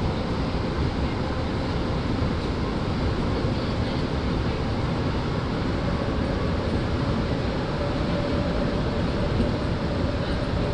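MR-63 rubber-tyred subway car running at speed through a tunnel, heard from inside the car: a steady, loud rumble of the tyres and running gear, with a faint motor whine that rises slightly in pitch.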